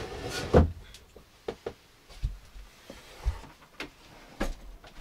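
Handling noise of belongings being packed up: a rustle of cloth or bags near the start, then scattered light knocks and thuds.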